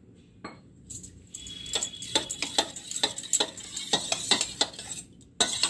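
Steel spoon whisking thinned curd in a stainless steel bowl, clinking and scraping against the sides at about three or four strokes a second, starting about a second in, with a louder clatter near the end.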